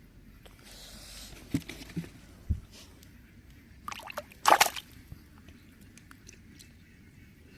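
Water sloshing and splashing, with a few dull knocks in the first three seconds and one loud, short splash about four and a half seconds in.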